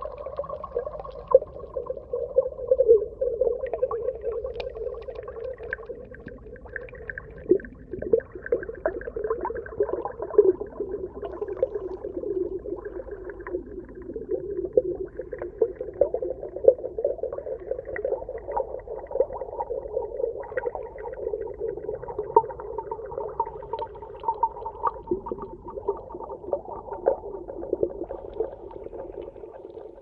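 Underwater ambience: a steady, muffled, murky hum with frequent irregular clicks and crackles.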